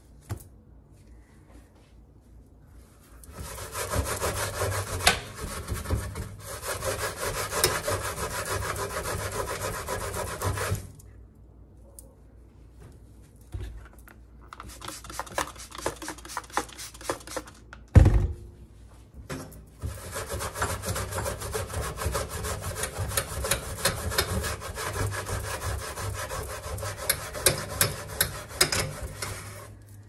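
Green scouring pad scrubbed back and forth against a toaster oven's door in three long spells with short pauses between. One loud thump falls in a pause about two-thirds of the way through.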